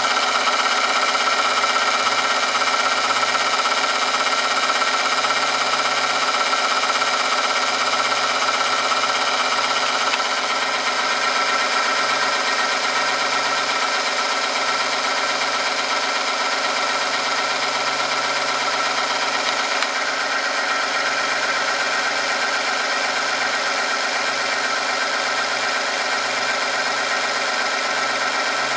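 Electric motor of an oil friction-testing machine running steadily, its spinning steel roller rubbing against a test sample in 10W40 truck oil under a weighted lever arm, giving a steady whine over a wavering hum.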